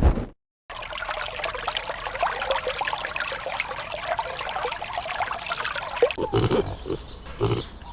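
A dense chatter of many short, high animal calls starts about a second in. From about six seconds in, pigs grunt in short low bursts.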